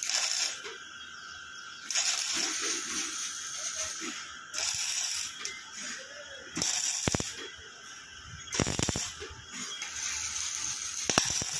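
MIG welding arc crackling and hissing in irregular bursts of half a second to two seconds, with short pauses and a few sharp pops between them.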